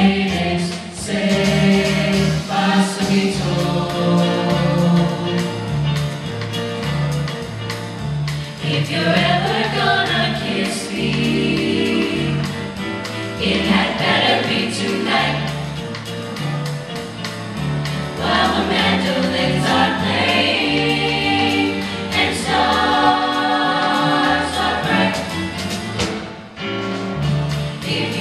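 Mixed choir of male and female voices singing with piano accompaniment, a low bass line stepping beneath the voices.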